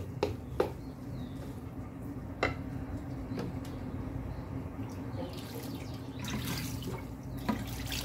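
Water poured from a plastic pitcher over steamed vermicelli (seffa) in a dish, moistening it between steamings; the pouring is loudest from about five to seven seconds in. A few light knocks come in the first few seconds, over a steady low hum.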